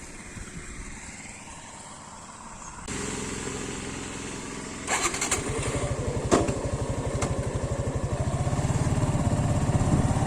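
Motorcycle engine, fairly quiet at first, growing louder about three seconds in. From about five seconds, after a few sharp knocks, its even firing beat comes through strongly and keeps getting louder as the bike pulls away and speeds up.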